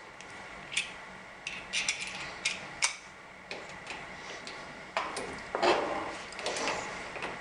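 Irregular small metal clicks and knocks of door lock hardware being handled and fitted, with a denser, louder clatter about five to six seconds in.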